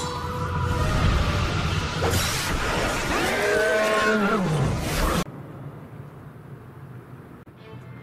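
Sci-fi alien transformation sound effects over music, with a beast's roar that falls in pitch about three to five seconds in, then cuts off suddenly.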